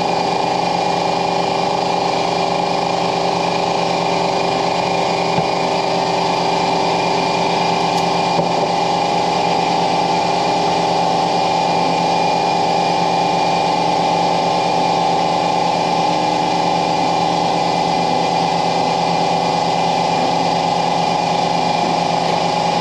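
A motor running steadily, an even mechanical whine that holds the same pitch throughout.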